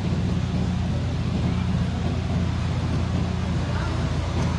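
Large truck engines running with a steady, low drone as a tarp-covered cargo truck pulls slowly away.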